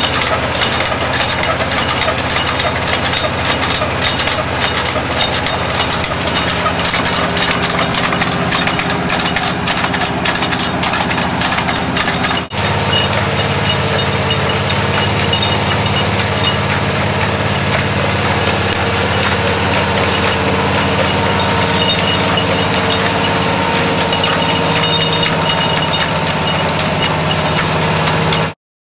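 Well-drilling rig running steadily under load: a loud mechanical drone with a fast rattle of drill gear through the first half. The sound changes abruptly about twelve seconds in to a steadier drone, and cuts off suddenly near the end.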